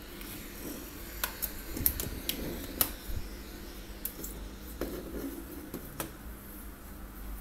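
A string of sharp plastic clicks and knocks, about nine in all and loudest in the first half, as a two-pin plug is pushed into an extension-board socket and the plastic bulb holders are handled on a table. A steady low hum runs underneath.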